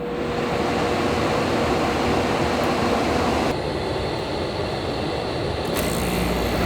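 Portable air conditioner running with a steady fan noise; about six seconds in a low hum joins as the unit switches from fan to air conditioning, its compressor starting up.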